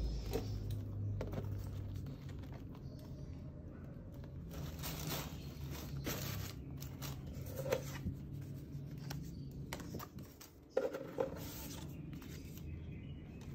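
Tissue paper and packaging rustling as a pair of leather loafers is handled and set in their box, in several short spells with a few sharp taps, over a steady low hum.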